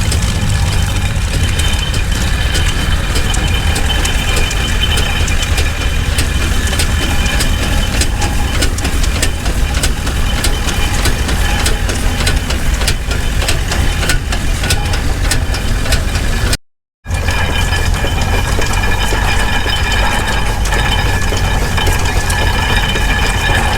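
Vintage steam-powered farm machinery running steadily: a continuous low rumble with many irregular clicks and knocks over it. The sound cuts out completely for a moment about two-thirds of the way through, then carries on the same.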